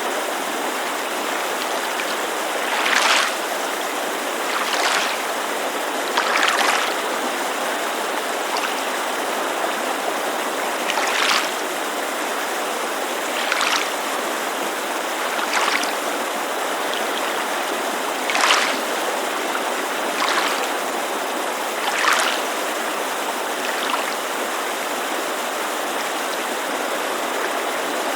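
Steady rushing white noise of a mountain creek. Over it, small waves lap against a lakeshore in short splashes about every two seconds, around ten times, and the laps stop for the last few seconds.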